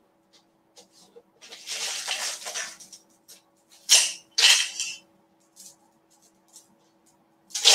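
Rustling and handling noises of someone rummaging through things, with a stretch of rustling early on and two short sharp rustles about four seconds in, over a faint steady hum.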